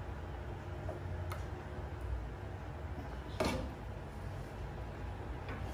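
Metal spoon scooping curry from a cooking pan onto a plate, with a few light clicks and one louder knock of the spoon against the pan about three and a half seconds in. A steady low hum runs underneath.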